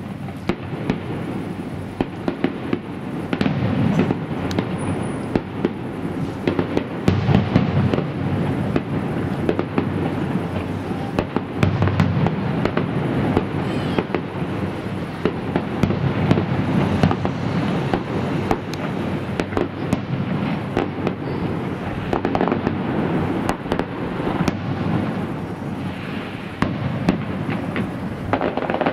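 Fireworks display going off without a break: a continuous rumble of shell bursts with many sharp bangs and crackles, and several heavier booms in the first half.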